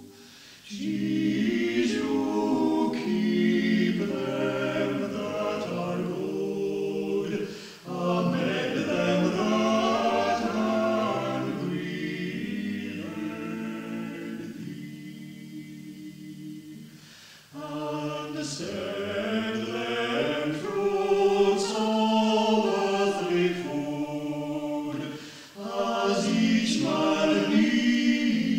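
Amateur choir singing unaccompanied, in long phrases with short breaks between them, heard from an old reel-to-reel tape recording.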